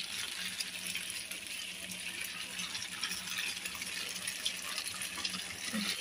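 Oil sizzling and crackling steadily around tofu-and-egg fritters shallow-frying in a pan, the patties still bubbling and not yet crispy. A low steady hum runs underneath.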